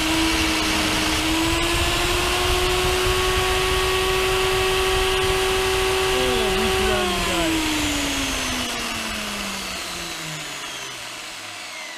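Jancy magnetic drill's electric motor running a twist drill in a drill chuck into steel plate, a steady whine. About seven seconds in the motor is switched off and the whine falls steadily in pitch as it spins down.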